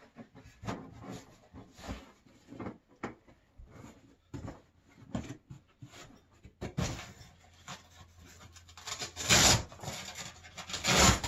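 Fabric sled cover and its clear plastic window rustling and rubbing as they are handled and pulled into place by hand, in short scrapes and crinkles with a few light knocks, loudest near the end.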